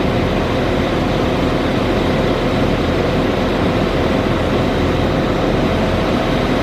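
Diesel train engines running steadily as a Class 156 diesel multiple unit pulls slowly into the platform beside a standing Transport for Wales diesel unit.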